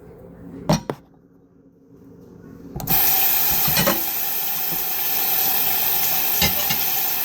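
Two quick clicks, then a loud, steady rushing hiss starts suddenly about three seconds in, with a couple of light knocks over it.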